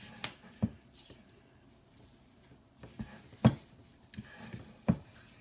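Wooden spoon stirring a stiff, sticky dough in a wooden bowl, knocking against the bowl about five times, the loudest knock about three and a half seconds in.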